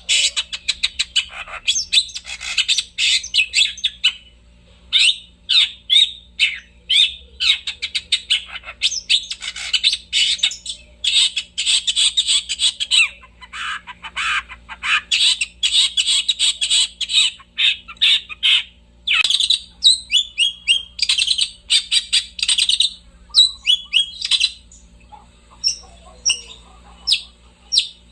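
Long-tailed shrike (cendet) in full song: long runs of fast, scratchy chattering notes, broken by brief pauses, thinning to scattered single notes near the end.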